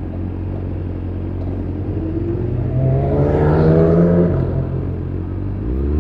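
Engine in traffic accelerating, its pitch rising and the sound growing louder to a peak a little past the middle, over a steady low engine rumble; a quick rev blip begins near the end.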